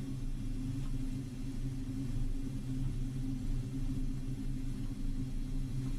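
A low, steady rumbling drone.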